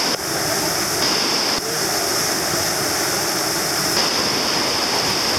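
River rapid: whitewater rushing in a steady, loud wash of noise.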